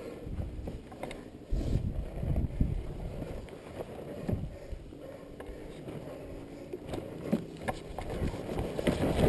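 Kawasaki KDX220's single-cylinder two-stroke engine running at low revs as the dirt bike creeps over loose dirt, its pitch shifting a little, with a few knocks from the bike over the ruts.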